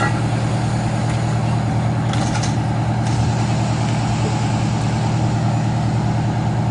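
Truck engine idling steadily, a constant low drone, with a brief clatter about two seconds in.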